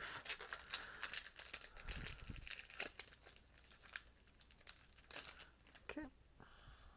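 Foil Pokémon card booster pack crinkling and tearing as it is opened by hand, a string of irregular crackles that dies down near the end.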